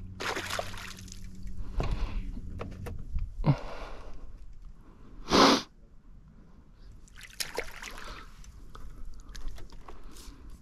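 Water splashing in several short bursts as a small bass is landed and handled, the loudest splash about five seconds in. A low steady hum stops about three seconds in.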